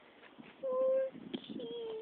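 A woman's voice singing two short held notes at a steady pitch, about a second apart, the second sinking slightly at its end.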